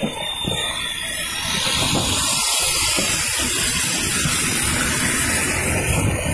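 Wind rushing over the microphone of a moving motorcycle, with a low rumble beneath. The rush grows louder about a second and a half in and then holds steady.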